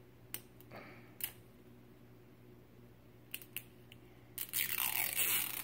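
Plastic toy packaging being handled, with a few scattered clicks and crinkles. About four and a half seconds in comes a loud stretch of plastic crinkling and rustling that lasts about a second, as the wrapper is pulled at.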